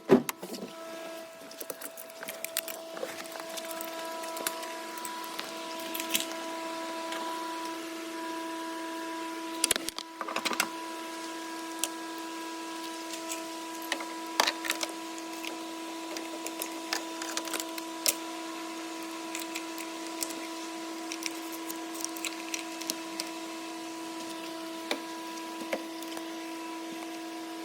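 Jump starter cable and battery clamps being handled and connected, with scattered clicks and knocks and a louder clatter about ten seconds in, over a steady hum.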